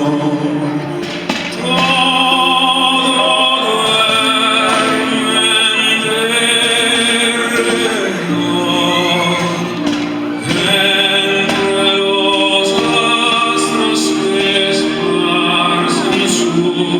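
Music with operatic singing: long held notes with wide vibrato, in two phrases with a short break about ten seconds in.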